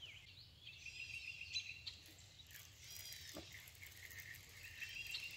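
Faint birdsong: a high, held note with quick arching notes above it, once about a second in and again near the end. A soft knock comes midway.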